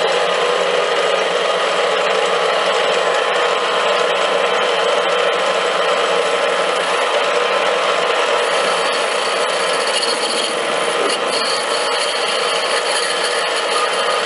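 A power machine tool cutting metal stock: a steady scraping, grinding cutting noise. A harsher, higher edge joins it about two-thirds of the way through.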